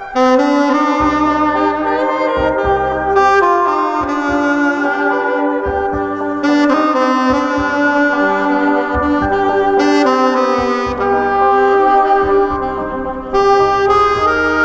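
Saxophone playing a slow melody of long held notes over a recorded backing track with bass, played live through a PA speaker.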